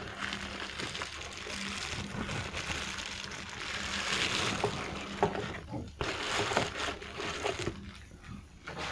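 Plastic bubble wrap crinkling and rustling in uneven handfuls as a camera body is unwrapped from it, loudest about four seconds in, with a short lull near six seconds.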